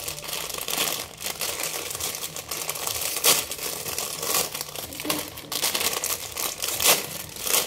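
Plastic instant-noodle packets crinkling and rustling as they are handled and opened, with a couple of louder sharp crackles about three and seven seconds in.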